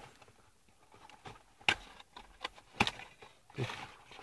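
Handling noise: a few sharp clicks and knocks as car alarm kit parts are picked up and put down, the two loudest about a second apart in the middle.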